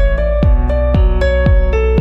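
Background music with held chords over a steady beat, about two beats a second.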